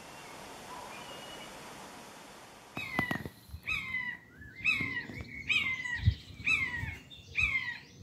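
Common buzzard giving its mewing call: a series of short, falling calls repeated about once a second, starting about three seconds in after faint hiss. A few low thumps sound beneath the calls.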